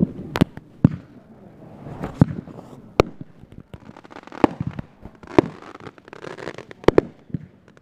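Aerial fireworks going off: about seven sharp bangs spread through, roughly one a second, with fainter crackling between them.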